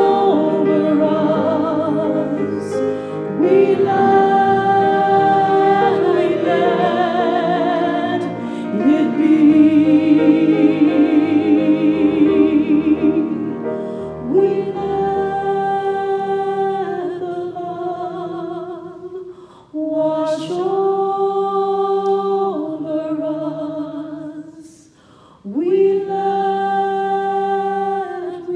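A woman singing a slow song solo into a microphone, holding long notes, some with a wide vibrato. The singing falls away briefly twice in the latter part, then comes back in on a held note.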